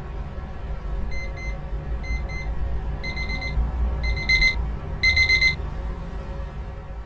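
Electronic phone alarm beeping in quick double beeps about once a second, getting louder with each round, then stopping about five and a half seconds in.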